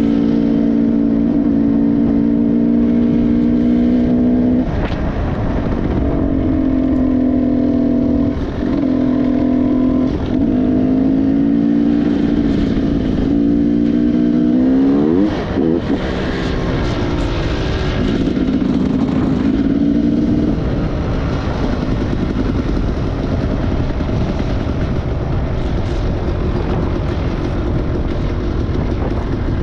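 Motorcycle engine running on the move. Its pitch climbs and then drops sharply at several gear changes, with a quick rev just before one of them. In the last third the engine note sinks into a steady rushing noise.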